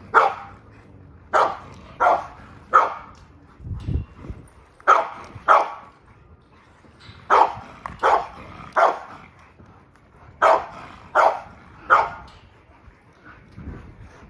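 A dog, an XL American bully, barking sharply about a dozen times in quick sets of three, with short pauses between the sets and a low dull thud around four seconds in. The barking dies down near the end.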